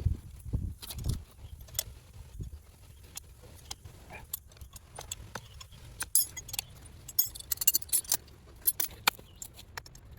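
Metal tools and parts clinking and rattling against each other, with a few dull knocks in the first couple of seconds and a quick run of clinks a little past the middle.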